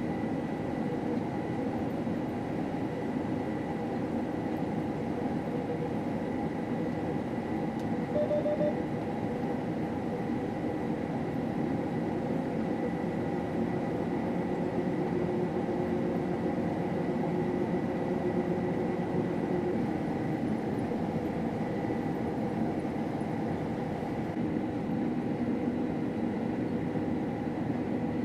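Combine harvester running while harvesting wheat, heard as a steady machine drone with a faint constant high whine.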